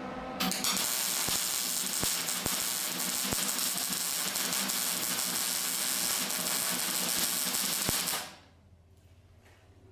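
Electric arc welding a steel patch plate onto a truck frame: a steady crackling hiss with occasional sharp pops, starting about half a second in and cutting off suddenly after about eight seconds.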